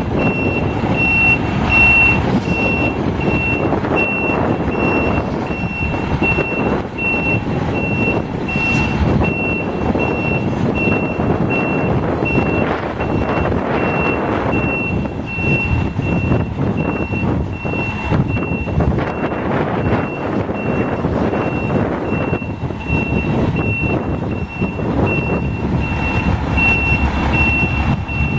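Reversing alarm on a 2000 Volvo front-loading garbage truck, beeping steadily at an even pace over the truck's running diesel engine.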